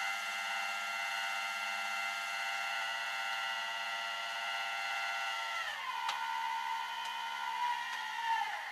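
Tow truck's hydraulic pump running with a steady whine. About six seconds in the pitch drops as it comes under load, then it slides down and cuts off near the end.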